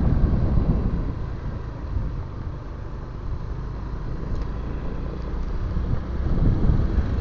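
Motorcycle riding along a road: a low engine and road rumble with wind on the microphone, easing off in the middle and building again near the end.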